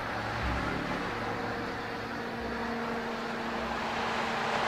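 Steady rushing roar of a mass snow goose takeoff (a grind), thousands of wings beating at once, with a faint steady low tone joining about two seconds in.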